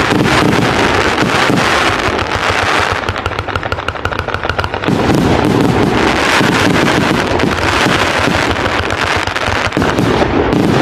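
A 1088-shot firework cake firing in rapid succession: a continuous rattle of launches and bursting shells. About three seconds in, the low end thins for about two seconds into a fast run of crackles.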